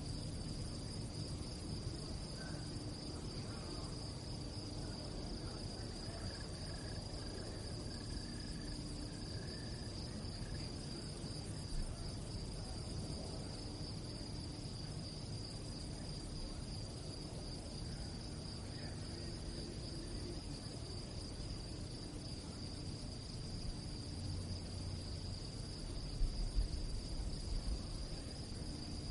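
Crickets chirping at night in a steady, unbroken high trill, over a low background rumble. A few low thumps come near the end.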